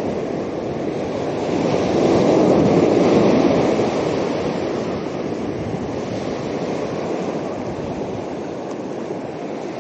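Ocean surf washing up the beach, a wave rushing in and swelling about two to three seconds in, then easing to a steady wash.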